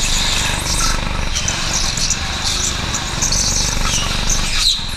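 Go-kart running at speed, heard from the driver's seat: a steady engine note mixed with rushing noise.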